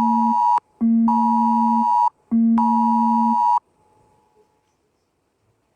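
Mobile phone emergency alert tone for an NDRRMC "Extreme" alert. It is a loud, harsh, steady tone sounded in long pulses of about a second and a quarter, separated by short gaps. One pulse ends just after the start, two more follow, and the tone stops about three and a half seconds in.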